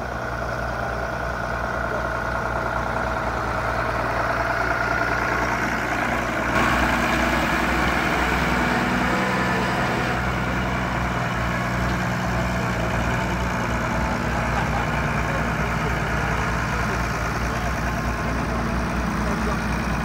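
Engine of a Matbro Mastiff four-wheel-drive Fordson Major conversion tractor running steadily with a low, even pulse. About six seconds in, the sound jumps to a closer, slightly louder engine.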